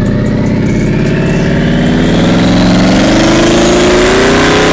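Twin-turbo Ford Mustang engine revving up slowly, its pitch climbing steadily for about three seconds and then holding high.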